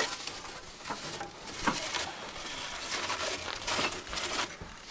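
Workshop handling noise of bolts being fitted to an engine: a sharp knock at the start, then scattered clicks and rustling, scraping sounds of hands and tools at work.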